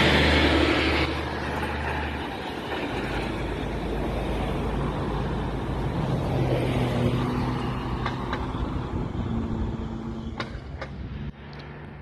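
Diesel semi-truck hauling a tank trailer passes close by, its engine and tyres loudest in the first second or so. Then the truck's engine runs farther off as it pulls away in light traffic, with two sharp clicks near the end.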